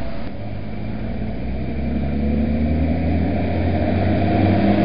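Diesel tractor engines running as a line of tractors approaches, a low, steady hum that grows louder.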